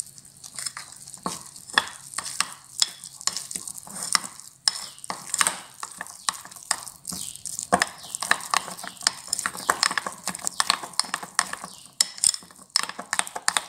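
A metal spoon stirring thick besan (gram flour) batter in a bowl, scraping and clicking against the bowl in quick, irregular strokes.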